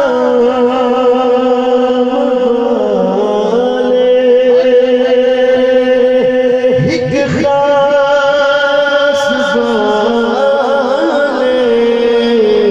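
A man chanting a devotional qaseeda into a microphone, amplified over a PA. He draws out long held notes with wavering, sliding ornaments and pauses briefly about seven seconds in.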